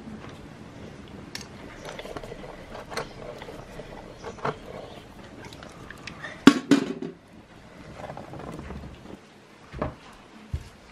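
Clinks and knocks from handling a large glass pickling jar and its metal lid, scattered through, with a sharper cluster of clanks about six and a half seconds in.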